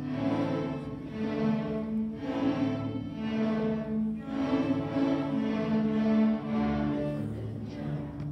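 Student string orchestra of violins and cellos playing, with bowed notes held and changing pitch every second or so over a low cello line.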